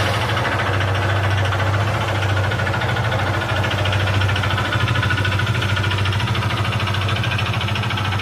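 Honda CG 150 Fan ESi fuel-injected single-cylinder four-stroke engine idling steadily with a rapid, regular beat running through it. This is the strange engine noise that the mechanic first takes for a knocking connecting rod.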